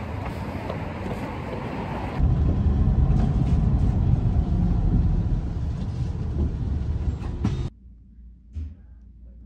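Street ambience with wind on the microphone, then, about two seconds in, a sudden cut to the low engine and road rumble of a bus heard from inside the cabin. The rumble cuts off abruptly near the end, leaving much quieter sound with one soft thump.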